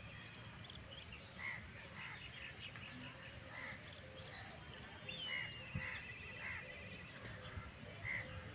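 Crows cawing in short, repeated calls, with another bird's wavering trill about five seconds in.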